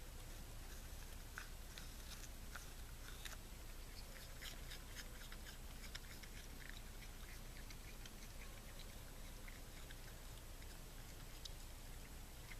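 Raccoon chewing a piece of apple: a run of faint, crisp crunching clicks, thickest in the first half and growing sparser toward the end.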